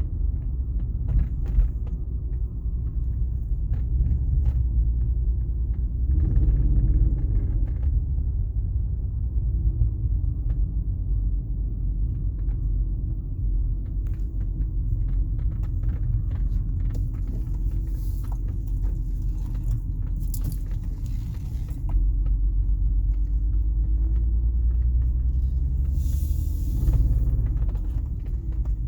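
BMW 330Ci's straight-six engine idling roughly, a steady low rumble that gets louder about three-quarters of the way through. Brief hissing noises come in twice in the later part.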